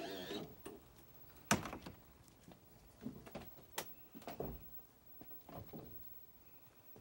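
Footsteps and knocks as someone climbs the entry steps into a motorhome: a few scattered thuds and sharp clicks, the sharpest about a second and a half in and a duller thud a little after four seconds.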